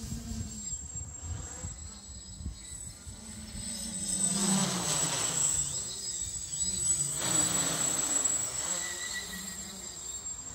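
Quadcopter with SunnySky 800kv brushless motors and 11x4.5 carbon propellers buzzing in flight, its pitch wavering up and down as the throttle changes. It grows louder twice, about four seconds in and again near seven seconds, as it passes closer. Wind rumbles on the microphone underneath.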